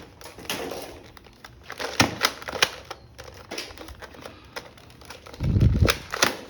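Sharp plastic clicks and clatter of toy guns being handled, a few close together about two seconds in, then a heavy low thump with more clicks near the end.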